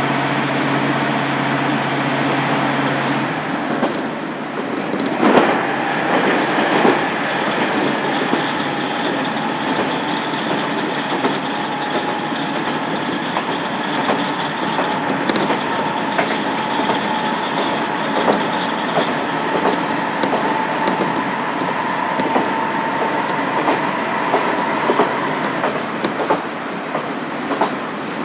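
Onboard running sound of a KiHa 47 diesel railcar with its original DMF15HSA engine: wheels clicking over rail joints. A steady hum stops about three seconds in, and a whine rises slowly from about eight seconds, fading out near the end.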